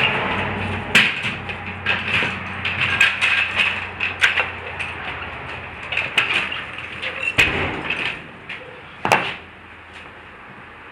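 Irregular clicks and knocks of tools and wheel parts being handled during a car tyre change, with one louder knock about nine seconds in, over a steady background noise that drops away soon after.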